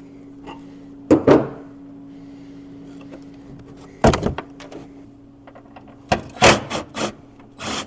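Sharp knocks and clicks of parts and trim clips being handled on a car's trunk lid: one knock about a second in, another about four seconds in, and a quick run of clicks near the end, over a steady low hum.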